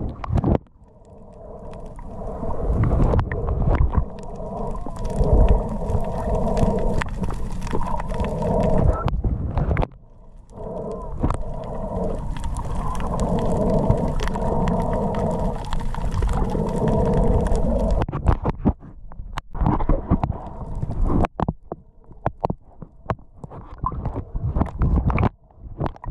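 Muffled underwater sound from a diving camera in its housing: water gurgling and sloshing, with a wavering droning hum through much of it that breaks off twice, then scattered knocks and splashes near the end.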